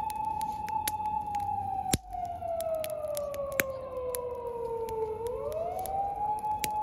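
Distant emergency vehicle siren, sounding for a mountain fire, wailing: a long held tone that slowly falls in pitch from about a second in, then swings quickly back up near the end. A campfire crackles and pops with sharp snaps through it.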